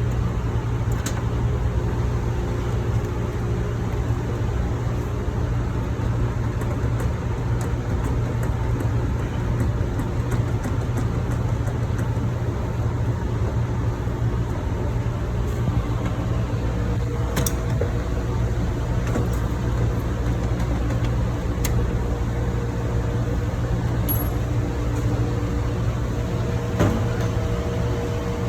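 Steady drone of ship engine-room machinery, with a few sharp clicks scattered through it and a faint steady hum tone joining about halfway through.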